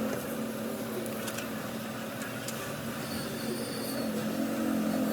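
Stadium crowd noise: a steady din of many voices, with a sustained low drone that swells near the end.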